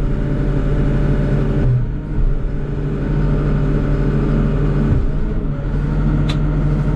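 Diesel engine and hydraulics of a CAT excavator running steadily, heard from inside the operator's cab while the arm is worked, with a brief dip about two seconds in. A single sharp click near the end.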